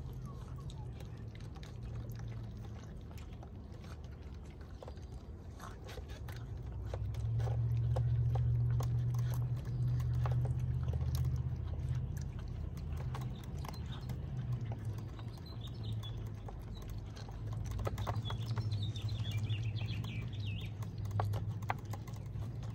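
Puppies eating dry kibble from a tray: many small, sharp crunches and clicks of teeth on the hard pieces, over a steady low hum that gets louder about seven seconds in.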